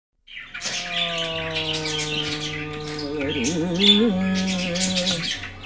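Caged budgerigars, cockatiels and Java finches chirping and squawking in many quick high calls. Under them runs background music with a long held note that wavers near the middle.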